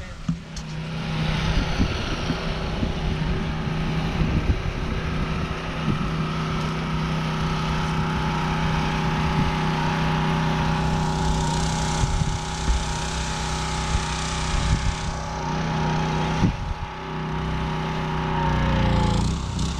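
Stihl RB400 gas pressure washer's engine running steadily under load, with the hiss of the high-pressure water spray from the wand striking house siding. The spray hiss grows brighter for a few seconds midway and dips briefly near the end.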